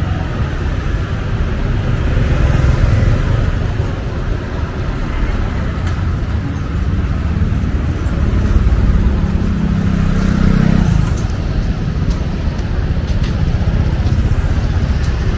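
Street traffic passing close by, a steady rumble of engines and tyres. From about eight seconds in, one passing vehicle's engine hum stands out for a few seconds, then stops abruptly.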